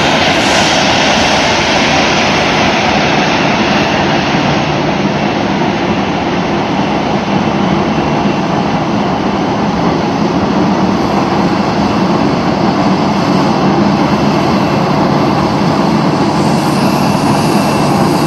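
Boeing 737-800's CFM56-7B turbofan engines running at taxi power as the airliner taxis close by: a loud, steady rumble and hiss with a faint high whine.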